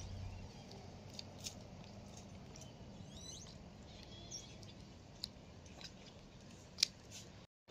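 Faint steady low background noise with scattered sharp clicks, the loudest near the end, and a few brief high chirps about three seconds in.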